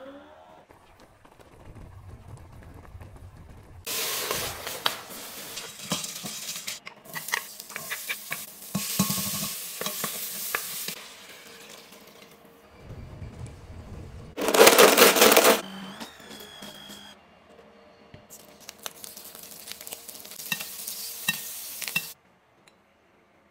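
A run of kitchen cooking sounds: bursts of handling noise, a loud short rush of noise about fifteen seconds in, then lobster pieces sizzling and crackling in butter in a pan near the end, cutting off suddenly.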